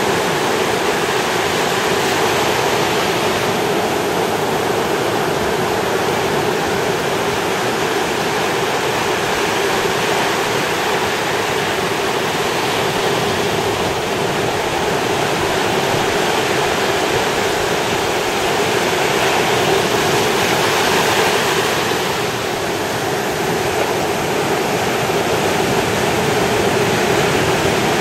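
Ocean surf breaking and washing up the beach in a steady rush, swelling a little about two-thirds of the way through.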